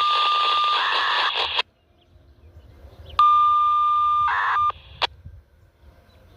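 Siren-control polling signals received over a Baofeng UV-5R handheld radio's speaker: two short transmissions, each a steady high beep-like tone that turns into a brief warbling data burst and cuts off suddenly. The first ends about a second and a half in and the second starts about three seconds in, with a short click just after it ends.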